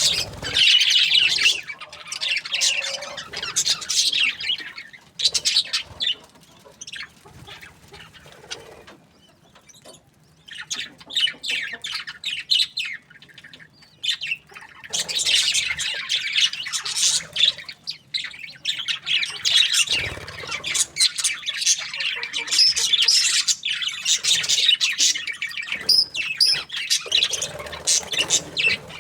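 A flock of budgerigars chirping and chattering in dense, overlapping high calls. The chatter eases off to a near lull about a third of the way in, then builds up again.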